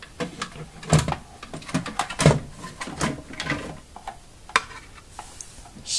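Scattered clicks and knocks of a cable modem and its cables being handled as an Ethernet cable is unplugged from its back.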